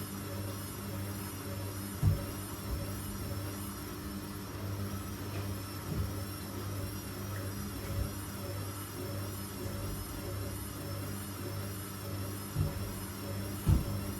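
Washing machine turning its drum slowly while it tries to balance a load of snow and ice before spinning, with a steady motor hum and a wavering whine. A few dull thuds, the loudest about two seconds in and near the end.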